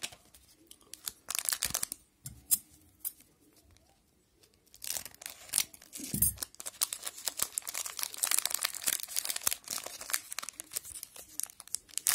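Foil wrapper of a trading-card pack crinkling and being torn open: a few crackles at first, then after a short pause a long run of dense crinkling and tearing from about five seconds in.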